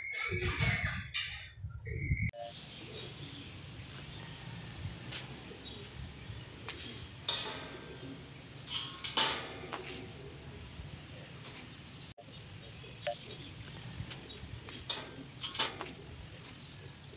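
Low outdoor background with occasional short bird calls and a few light clinks. A louder stretch of mixed noise cuts off abruptly about two seconds in.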